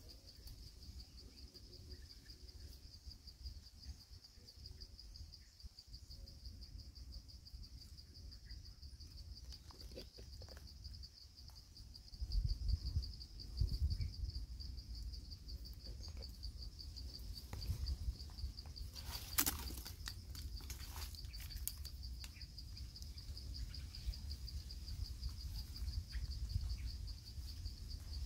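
Insects trilling steadily in a high, finely pulsing drone. Low rumbling noise comes and goes from about halfway through, with a single sharp click a little later.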